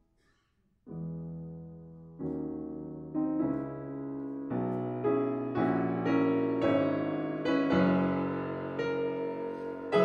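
Solo piano music. After a brief silence, chords begin about a second in and build, each new chord adding notes and getting louder.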